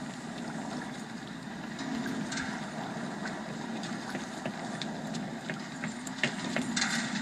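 A steady, low, engine-like rumble with scattered faint clicks.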